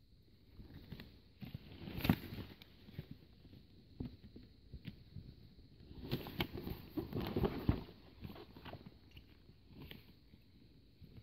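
Ordinary scissors snipping through a rubber neck seal in a series of short, crunchy cuts, the sharpest about two seconds in and a run of cuts around six to eight seconds. The stretched rubber rustles as it is handled between cuts.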